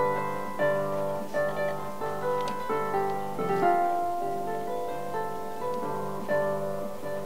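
Celtic harp played solo: a melody of plucked notes and chords that ring on, over sustained lower bass notes.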